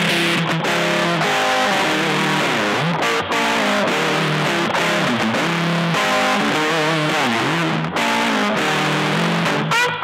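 Strat-style electric guitar played through a pedalboard of effects pedals, a steady stream of single notes with string bends and vibrato.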